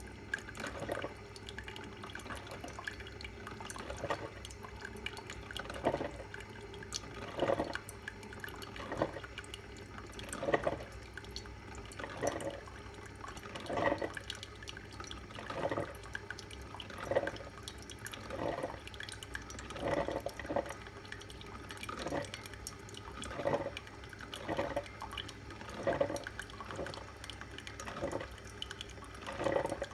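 Single-cup drip filter coffee maker brewing: water spurting and dripping in bursts about every second and a half, over a steady low hum.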